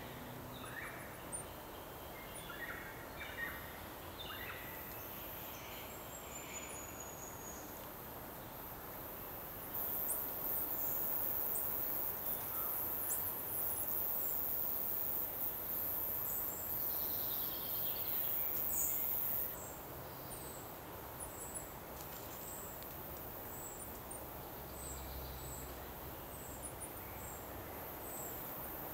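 Tiny, very high-pitched calls of titipounamu (New Zealand riflemen), short peeps repeated about once a second through the second half. A steady, very high hiss comes in for about ten seconds in the middle, and other birds chirp faintly in the first few seconds.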